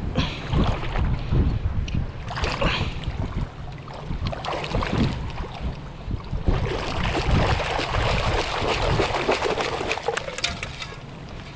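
Water churning and sloshing heard by an underwater camera as a perforated steel sand scoop digs into the seabed, with gritty crackling of sand and shell. The digging grows denser and louder in the second half as the scoop is worked and lifted.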